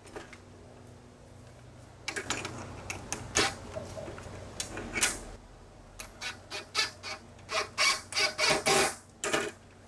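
Cordless drill driving screws into an aluminium vent frame in a run of short bursts, after a few seconds of knocks and scrapes as the metal frame is handled.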